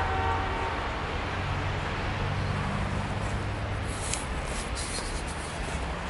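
Low, steady rumble of city traffic with a vehicle engine droning, and crunching footsteps in snow from about two-thirds of the way in.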